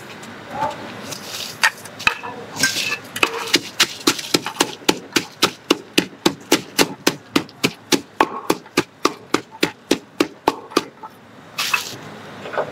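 Wooden pestle pounding in a Thai clay mortar, a steady run of sharp knocks about four a second that starts a few seconds in after some scattered strokes and stops near the end.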